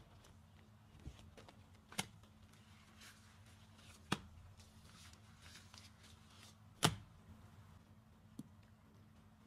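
Car sponge soaked in thick, creamy soap paste squeezed by hand: quiet squelching with three sharp wet clicks, the loudest about two-thirds of the way in. A low steady hum runs underneath.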